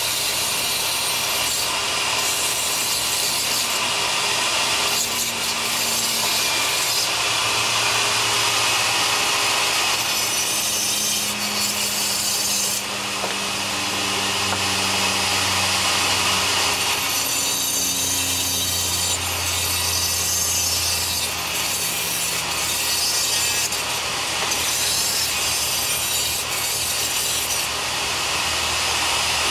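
Handheld rotary tool with a small abrasive cut-off disc cutting into cement plaster along a crack, a continuous high grinding hiss, its motor note shifting now and then as the disc bears into the cut.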